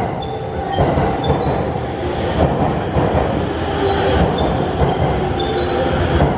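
Train running on rails: a loud steady rumble and rattle with short, high squeals from the wheels.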